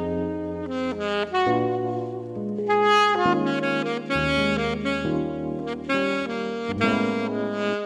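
Selmer R54 alto saxophone, played with a Selmer S90 180 mouthpiece and Vandoren Blue Box 2 reed, playing a melody of mostly held notes. Underneath runs an accompaniment of low sustained chords.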